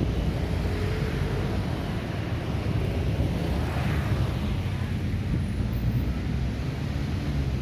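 Street traffic ambience: a steady rumble of passing vehicle engines and tyres, with wind buffeting the microphone.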